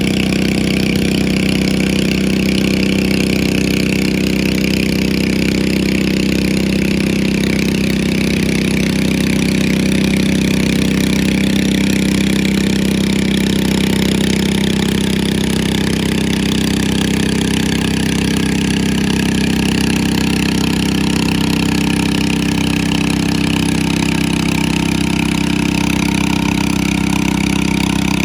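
Pulling lawn mower's engine running steadily, its pitch drifting only slightly.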